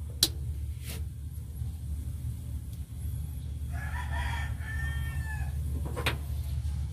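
A rooster crowing once, about four seconds in, over a steady low hum, with a few sharp clicks near the start and near the end.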